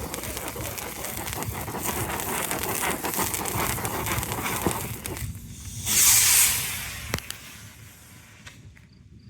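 Lit consumer firework crackling and hissing steadily, with a loud hissing burst about six seconds in, then dying away.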